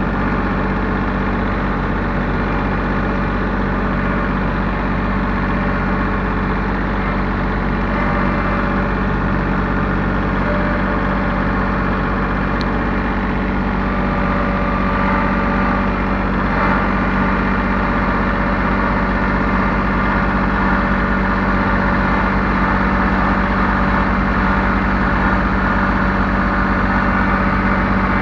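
Bulldozer's diesel engine running steadily at an even speed, close up, growing slightly louder after about halfway.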